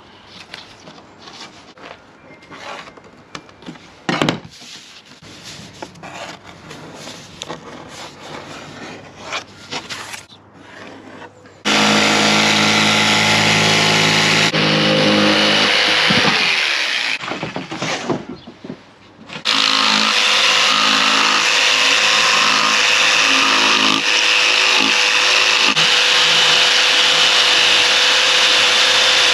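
Light knocks and rubbing as a cardboard template and tools are handled on a plywood sheet. About twelve seconds in, a Bosch jigsaw starts cutting the plywood with a loud, steady saw noise. Its pitch falls and it stops briefly about two-thirds through, then it starts again and keeps cutting.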